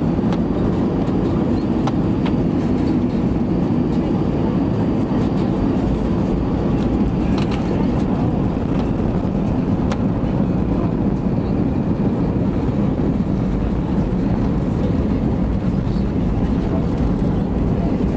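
Cabin noise of an Airbus A320 landing and rolling out along the runway with its spoilers up: a steady low rumble of engines, airflow and wheels.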